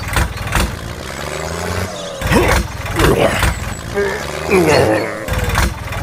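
A tractor engine running steadily with a low, even hum, broken by several sharp clacks. Gliding, voice-like sounds come in around the middle.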